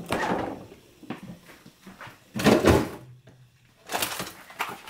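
Refrigerator door being opened and items inside moved about: a few short sliding and knocking noises, the loudest about halfway through.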